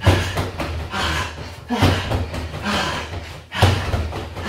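Jumping round kicks striking a Wavemaster free-standing punch bag: a heavy thud about every two seconds, three in all.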